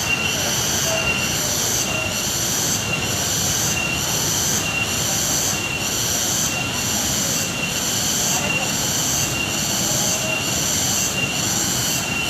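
Steady rush of a waterfall, with a high whine or buzz pulsing over it about one and a half times a second.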